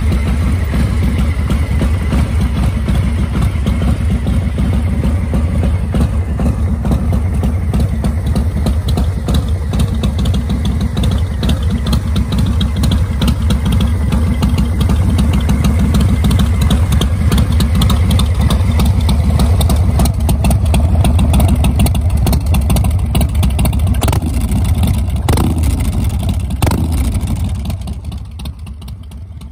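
Harley-Davidson Breakout's V-twin engine running through its exhaust with a deep, steady rumble, given three quick throttle blips near the end before it drops quieter.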